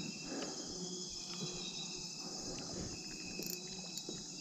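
Steady, high-pitched chorus of insects chirring, with a few faint clicks.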